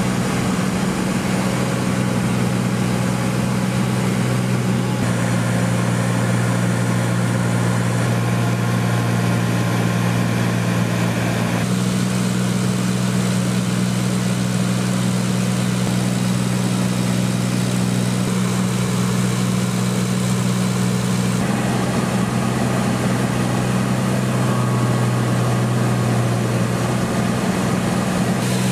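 MQ-9 Reaper's turboprop engine and pusher propeller running steadily at low power: a loud, constant drone with a strong low hum. The tone shifts abruptly a few times.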